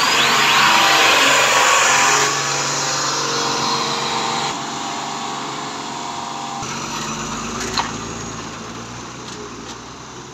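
Heavy trucks on the move: a steady rush of diesel engine, tyre and wind noise, loudest in the first couple of seconds and slowly fading. A repeating warbling chime, typical of a truck's reversing horn, tails off in the first second.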